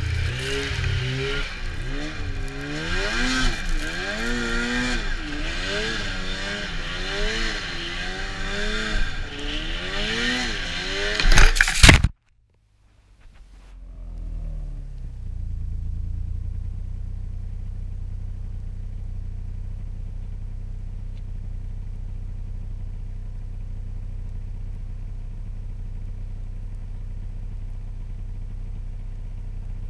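Arctic Cat Crossfire 600 snowmobile's two-stroke twin running at speed over snow, its pitch rising and falling with the throttle under a heavy rush of wind and track noise. About twelve seconds in there is a loud burst, the sound cuts out abruptly, and after a short gap a low, steady, muffled engine hum takes over.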